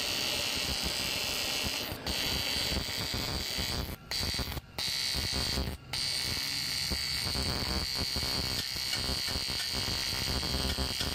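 Electric welding arc buzzing steadily as weld is built up on a cast metal part, cutting out briefly a few times in the first six seconds as the arc is broken and restruck.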